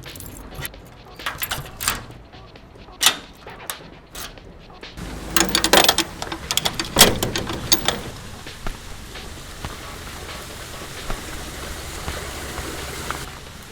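Added sound effects: a run of sharp clicks and knocks, then a louder, busier clatter, settling into a steady hiss.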